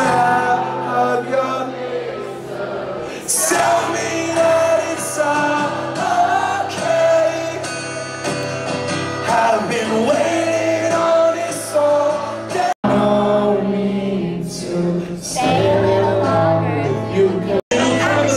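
Live concert music recorded from within the crowd: a male voice singing over sustained chords, with the crowd singing along. The audio cuts out for an instant twice in the second half.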